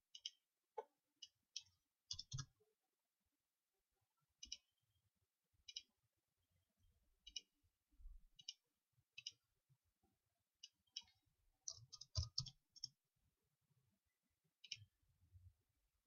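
Faint computer mouse clicks, short and sharp, at irregular intervals of a second or so, with a quick run of several about twelve seconds in, against near silence.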